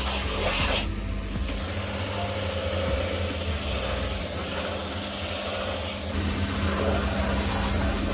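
Shoe finishing machine's sanding band running with a steady motor hum, a shoe sole pressed against it to grind off the thin midsole. The rasping briefly drops out about a second in.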